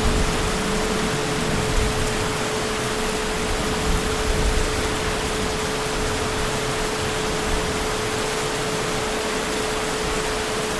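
Heavy rain falling in an even, steady hiss, with a low rumble of distant thunder dying away in the first couple of seconds. A thin steady hum runs underneath.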